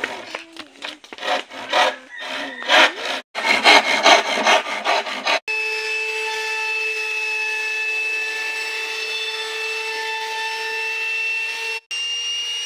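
Hand saw cutting a wooden board in quick, uneven strokes, then, about five seconds in, a compact electric trim router running with a steady whine.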